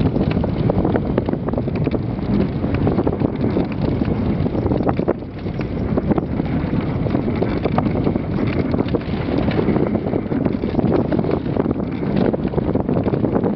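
Dogsled runners hissing and scraping over a snow trail while the sled moves, with wind buffeting the microphone and many small clicks and knocks from the moving sled.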